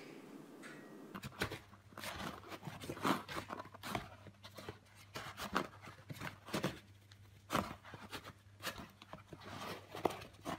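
A cat's paw scratching and batting at a cardboard cat-food box: irregular scratchy scrapes and taps on the cardboard, several a second at times.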